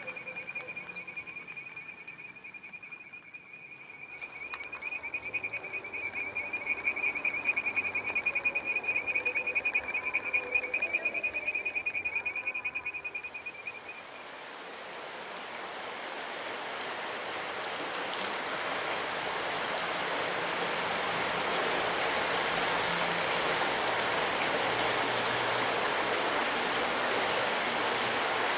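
A high, steady trill with a few short falling chirps over it, then about halfway through the rushing of a shallow stream flowing over rocks, which swells and then holds steady.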